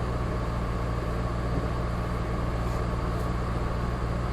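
Engine of a Lamborghini Countach replica idling steadily with an even low hum.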